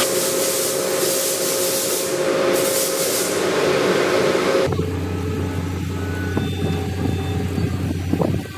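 A steady hiss of machinery noise with one held tone, which cuts off sharply about halfway in. A heavy machine's engine then runs steadily with a low hum while the crane lifts the glulam beam.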